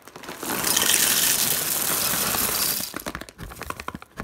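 Dry cereal poured from a bag into a ceramic bowl: a continuous rush of pieces striking the bowl and each other for about two and a half seconds, then a few scattered clicks as the last pieces drop and settle.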